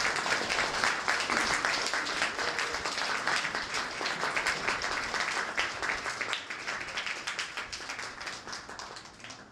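Audience applauding, many hands clapping together, fading out gradually over the last few seconds.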